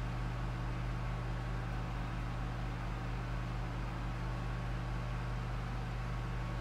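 Steady low hum over a constant hiss, with no distinct handling sounds.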